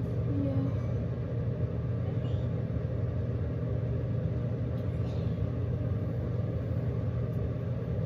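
Steady low electrical hum and rumble, unchanging throughout.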